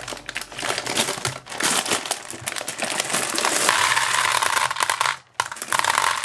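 A plastic bag of gumballs crinkling as it is handled, then the gumballs pouring out and rattling into a plastic toy tub in a dense, steady clatter from about three and a half seconds in, with a brief break near the end.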